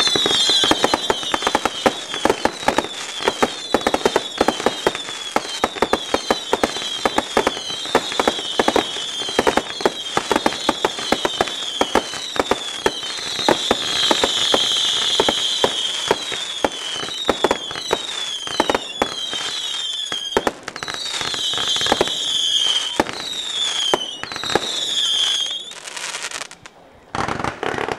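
Fireworks display firing a rapid, continuous barrage of bangs and crackles, laced with many whistles that fall in pitch. The barrage stops about 26 seconds in, and a single dull thump follows near the end.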